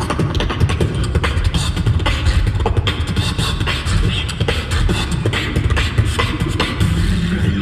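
Solo beatboxing through a PA system: rapid vocal kick-and-snare strokes over a heavy, continuous low bass, with a steady hummed tone joining near the end.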